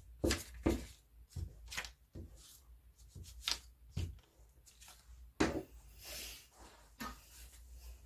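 Glue stick rubbed along paper edges, with the paper pressed and shifted on a wooden desk: scattered taps, rubs and rustles, and a longer rustle about five and a half seconds in.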